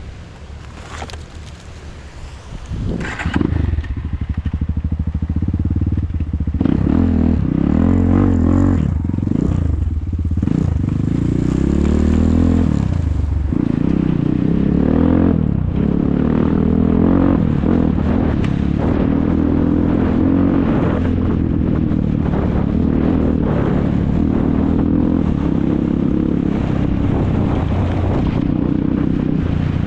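ATV engines revving hard, their pitch rising and falling again and again with throttle and gear changes. The sound turns loud about three seconds in.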